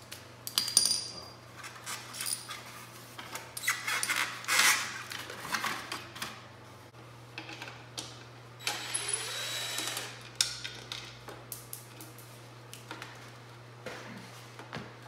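Hand tools and metal parts clinking and knocking while a motorcycle's front fairing is taken apart, with a cordless drill/driver running for about a second and a half just before the middle to take out a fairing fastener.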